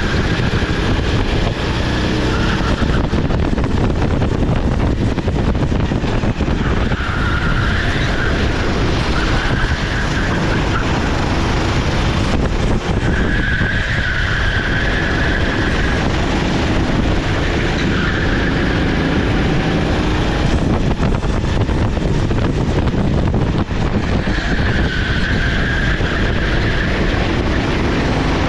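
Sodi SR4 rental kart's 390cc single-cylinder four-stroke engine running hard at race pace, its revs climbing and dropping again every few seconds.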